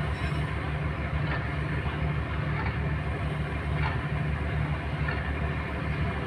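A boat's diesel engine running with a steady, rhythmic low thumping.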